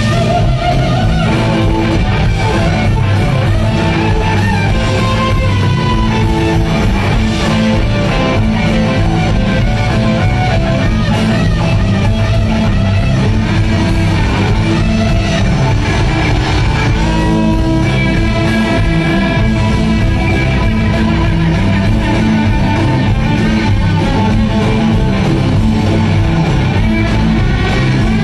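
Live blues-rock band playing: several electric guitars over drums with a steady beat, lead guitar lines bending in pitch, heard from the audience.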